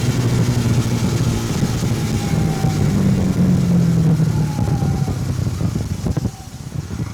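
Hero Xtreme 160R 4V motorcycle's single-cylinder engine running while riding, with wind noise over the microphone. The engine note rises a little in the middle and eases off near the end.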